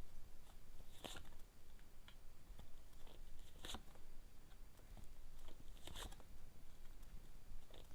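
Lenormand cards being handled and laid out on a table: three brief papery swishes and snaps a couple of seconds apart.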